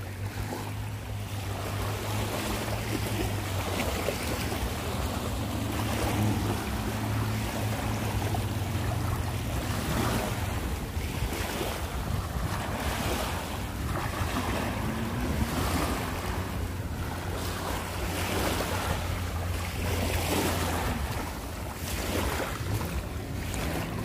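Small sea waves lapping and washing onto a pebble shore: a soft rustle that swells every couple of seconds, over a steady low rumble.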